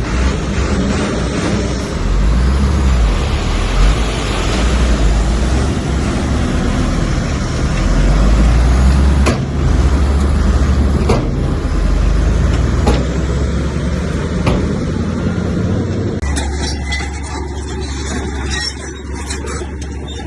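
Heavy diesel earthmoving machinery running under load, with a deep engine rumble and scraping noise, and a few sharp knocks. Near the end the sound turns to a steadier low hum.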